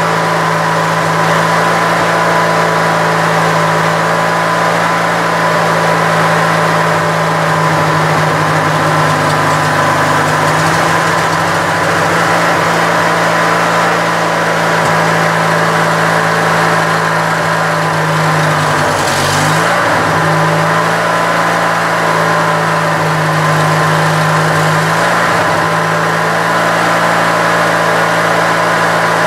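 Briggs & Stratton opposed-twin engine of a Craftsman LT1000 lawn tractor running steadily at about middle throttle with the choke off, on a freshly fitted 4-screw Nikki carburetor. Its note dips and wavers briefly about two-thirds of the way through.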